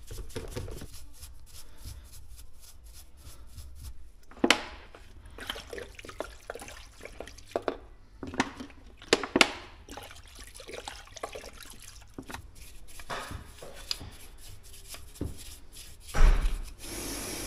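A brush scrubbing a diesel injection pump housing in a tray of diesel: liquid splashing and dripping, with scattered knocks and clinks of the metal housing. Near the end a loud spray hiss starts and keeps going.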